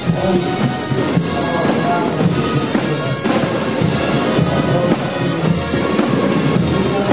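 Processional band music: sustained wind-instrument tones over drums and bass drum, playing continuously.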